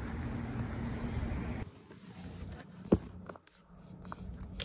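Steady background hiss with a low hum that drops away suddenly, then returns; a single sharp click about three seconds in.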